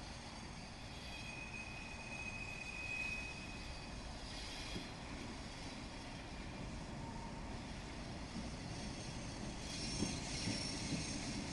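Freight train with SM48 and SM42 diesel locomotives approaching from afar: a low, steady engine rumble that grows slowly louder, with a thin high wheel squeal from about one to three and a half seconds in.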